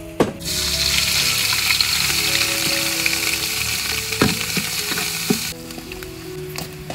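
Pounded spice paste sizzling as it fries in oil in a metal pot. The sizzle starts about half a second in and drops away near the end, with a few clinks of a metal ladle against the pot.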